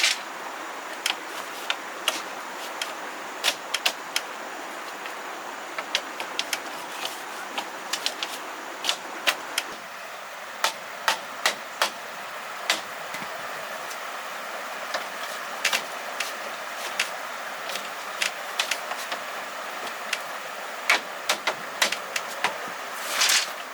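Irregular sharp knocks and clicks of hard objects being handled, over a steady hiss, with a longer scraping burst near the end.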